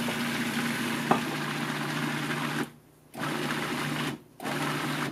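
Food processor motor blending cooked vegetables in broth, with a sharp tick about a second in. It cuts out for a moment twice and stops near the end, as the pulse control is worked.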